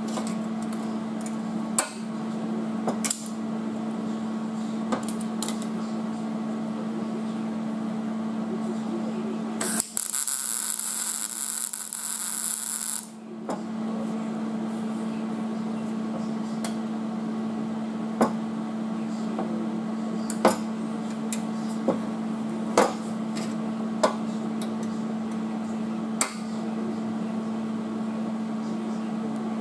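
An electric welding arc on the sheet-metal inner rocker panel: one burst of crackling hiss lasting about three and a half seconds, roughly ten seconds in. A steady hum runs underneath throughout, and several sharp metal clicks and taps from tools and clamps fall around the weld, the loudest of them in the second half.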